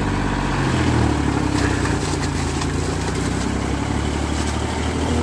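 Diesel engine of heavy farm machinery running steadily, its low note shifting slightly about a second in.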